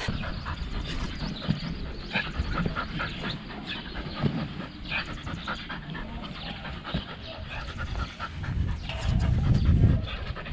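Dog panting in quick, rasping breaths over a low rumble on the microphone that swells about nine to ten seconds in.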